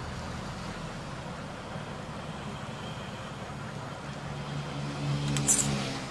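Steady low mechanical drone, like a motor running, that swells near the end into a louder droning hum, with a brief rasping scrape about five and a half seconds in.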